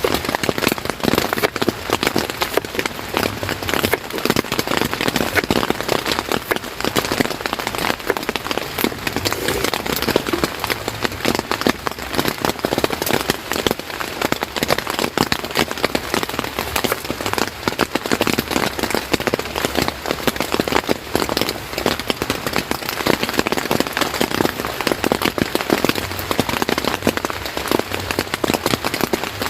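Steady rain: a dense, even spread of many small drop impacts falling on a surface, with no let-up.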